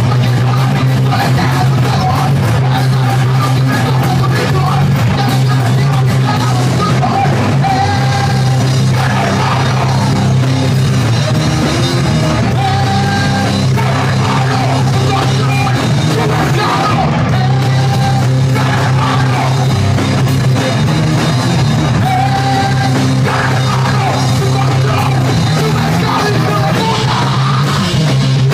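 Rock band playing loud and steady live: electric guitar, bass and drum kit, with yelled vocals.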